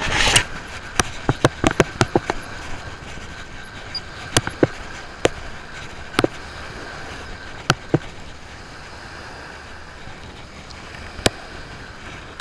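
Steady wash of surf and wind with scattered sharp clicks and taps, a cluster in the first two seconds and a few more spread through the rest, from a surf-fishing rod and reel being handled.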